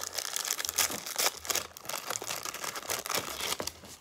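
Thin plastic snack wrapper crinkling and crackling as it is handled and torn open, a quick irregular run of small crackles.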